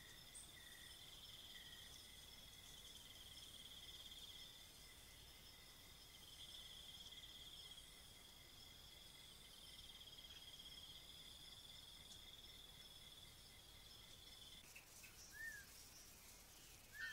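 Faint night insect chorus: a steady high, cricket-like trill with a regular pulsing note beneath it, which stops suddenly about fifteen seconds in. A single short rising-and-falling chirp follows near the end.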